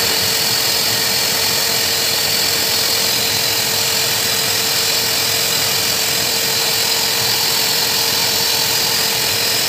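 Hose-type pet blow dryer running steadily as its nozzle is worked over a Saint Bernard's wet coat: a constant rush of air with a steady motor hum.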